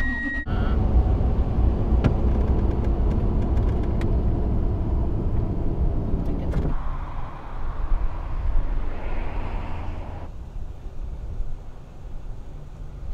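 Road and engine noise of a first-generation Toyota Tundra pickup heard from inside the cab while driving at highway speed: a steady, dense rumble and hiss. About seven seconds in it changes abruptly to a quieter low rumble.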